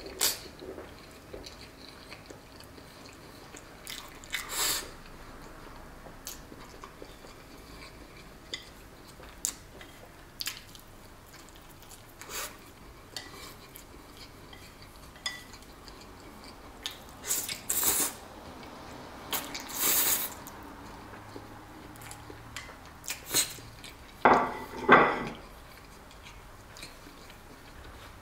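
A metal fork clinking and scraping against a ceramic plate of fettuccine, with chewing between the clinks. Near the end the plate is set down on the table with a couple of louder knocks.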